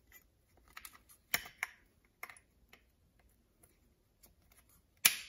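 A plastic rear bracket being worked into the end of a steel undermount drawer slide: a few light clicks and rattles, then one sharp click near the end as the bracket snaps into place.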